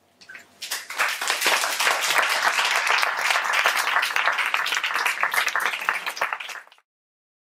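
Audience applauding: the clapping builds up within the first second, holds steady, and is cut off abruptly near the end.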